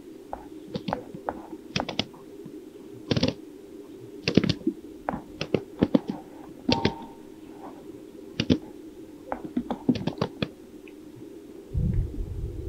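Greater sage-grouse males displaying on a lek: a long series of sharp pops from their inflated chest air sacs, many coming in quick pairs, over a steady low background. Wind begins to rumble on the microphone near the end.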